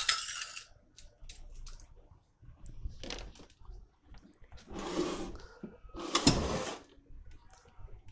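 Scattered clicks and light knocks of hands handling parts and wiring at the open back of a semi-automatic washing machine's plastic cabinet. About five and six seconds in come two short rushing, scraping noises.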